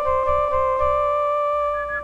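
Electronic keyboard music: a held, steady chord over a pulsing low beat of about four pulses a second. Near the end the beat drops away and short warbling high notes begin.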